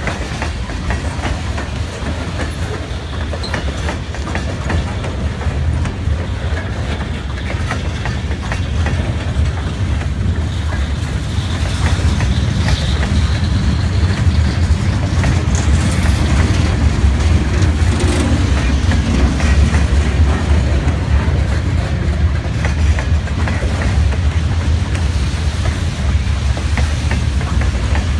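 Freight train cars rolling past: a steady low rumble with the clickety-clack of wheels over rail joints, a little louder from about halfway through.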